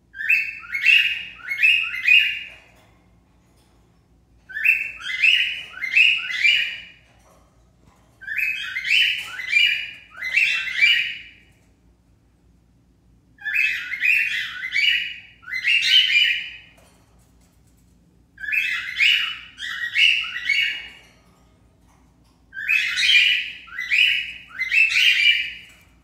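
Cockatiel calling in sets of three short rising chirps, a set about every four seconds, six sets in all.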